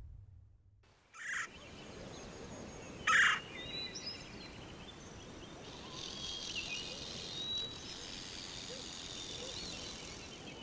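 Birds calling over a steady outdoor hiss: two short, loud calls about one and three seconds in, then thin chirps and whistles.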